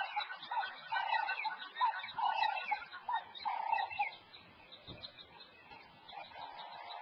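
An animal calling over and over, about two short calls a second, each with a curving upper note. The calls stop about four seconds in, and fainter calls of the same kind come back near the end.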